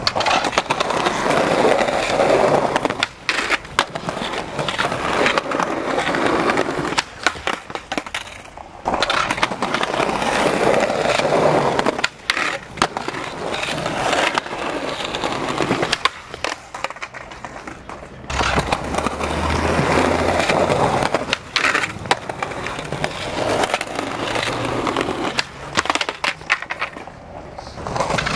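Skateboards rolling on smooth concrete, with the sharp snap of tail pops and the clack of boards landing and hitting the ground during flatground tricks, repeated over many tries.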